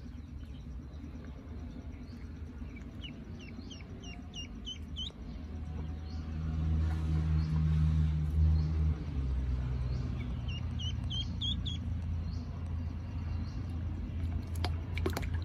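A duckling peeping: a run of about ten short, high peeps a few seconds in, and a shorter run of about six a few seconds later. Under it a low engine drone swells in the middle, and a few sharp clicks come near the end.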